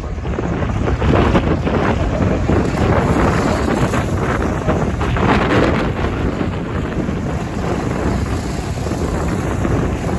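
Wind buffeting the microphone, over the steady engine noise of a pack of Micro F2 stock cars racing round the oval.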